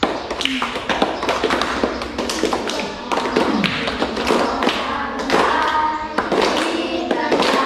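A group of children singing a song together in unison, with many sharp taps keeping time throughout.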